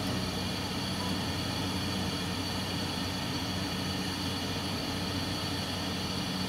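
Fan heater's blower running: a steady whirring hum with a hiss over it.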